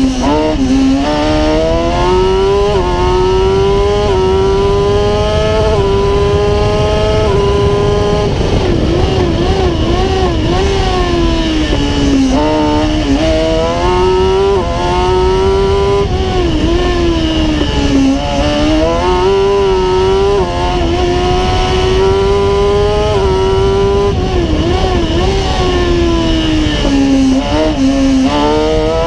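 Kawasaki ZX-10R 1000 cc inline-four motorcycle engine in a single-seat racing prototype, revving hard under full throttle. It climbs through quick upshifts in the first several seconds, then wavers on and off the throttle through tight chicanes, with sharp drops in pitch on lifts and downshifts before revving up again.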